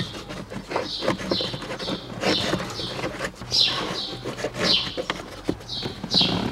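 Cabin air filter being worked into its plastic housing by hand: plastic clicks, knocks and scraping. Short high falling chirps repeat about twice a second throughout.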